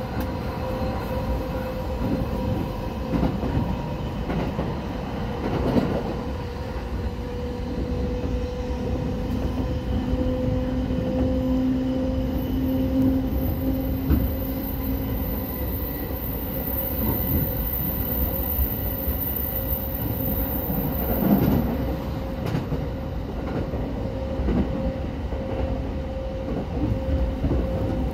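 Running noise of a JR Sobu Line local electric train at speed, heard from inside the carriage: a steady rumble of wheels on rail with a steady motor hum, and a faint high whine through the middle.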